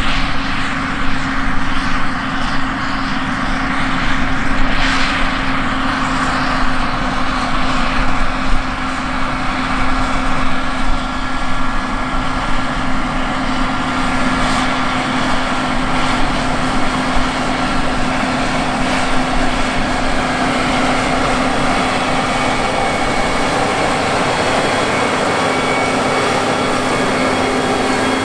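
Large diesel farm machinery running steadily: a constant engine drone with a steady low hum, swelling briefly a few times in the first six seconds.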